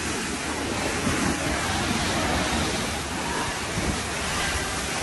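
Steady rushing of water pouring down a water-park slide.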